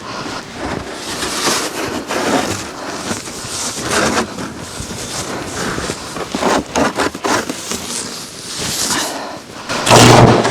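Snow shovel scraping and pushing heavy snow in irregular strokes. Near the end comes a sudden, much louder burst with a low buzz, the start of a tree branch shorting across overhead power lines.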